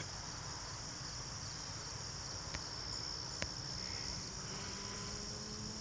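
Steady high-pitched chorus of crickets trilling in the evening, over a low rumble, with two faint ticks about two and a half and three and a half seconds in.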